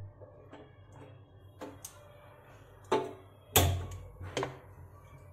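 Gas stove burner being lit: a few sharp clicks, the loudest about three and a half seconds in as the burner catches, followed by the low sound of the gas flame burning.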